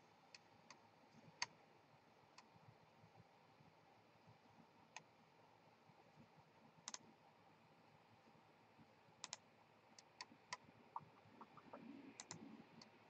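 Faint, scattered clicking at a computer, about a dozen sharp clicks with some in quick pairs, over near silence.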